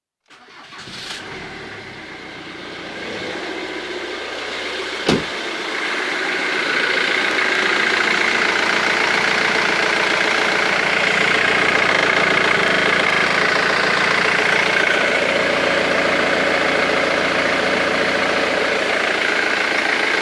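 Ford Mondeo 2.0 TDCi four-cylinder diesel engine running at idle, with no lifter tick after five hydraulic lifters were replaced, which the owner takes as proof they were dead. The sound builds over the first several seconds, with a single sharp click about five seconds in, then holds steady.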